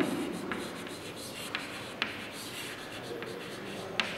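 Chalk writing on a chalkboard: faint scratching strokes broken by a few sharp ticks as the chalk strikes the board.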